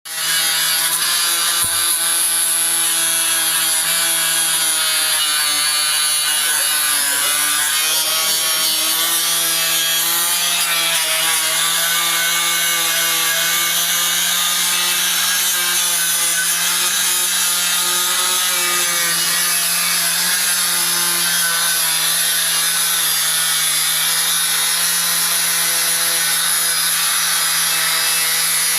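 A handheld power tool's motor running steadily while abrading a surface, with a dense high scraping hiss over the motor hum. About seven seconds in, the motor's pitch dips briefly and recovers.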